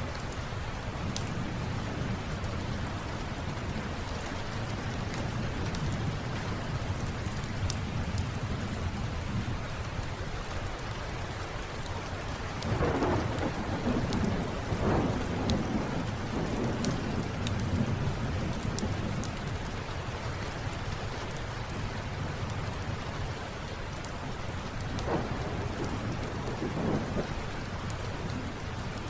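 Steady rain with a low rolling rumble of thunder, swelling louder about halfway through and again near the end, with small sharp pops of a crackling fireplace scattered over it.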